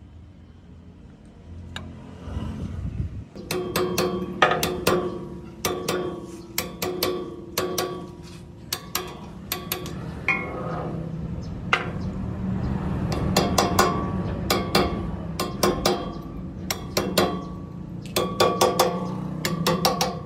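Irregular hammer blows on metal, coming in quick clusters, each leaving a short metallic ring, over a steady low hum.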